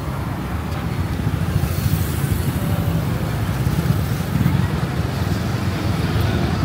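Street traffic ambience: a steady low rumble of passing vehicles.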